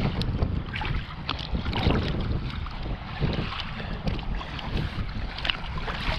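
Wind rumbling on the microphone, with small splashes and lapping of lake water as a trout is held in the water at the boat's side.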